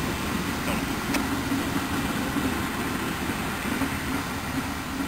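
VIA Rail passenger cars rolling past on the rails: a steady rumble of wheels on track as the tail of the train goes by.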